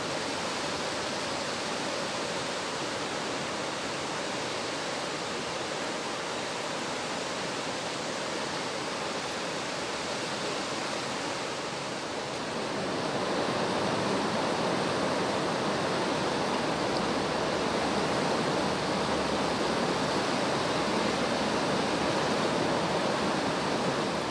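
Floodwater in a swollen river rushing steadily, a continuous noise of fast-moving water that gets louder about halfway through.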